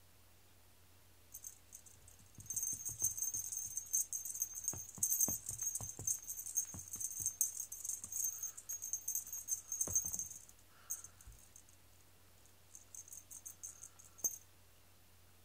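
Small bell on a string-dangled cat toy jingling as the toy is swung and bounced across foam floor mats, with light taps where it hits the floor. The jingling runs for about nine seconds, stops with a thud, then comes back in a few short shakes near the end.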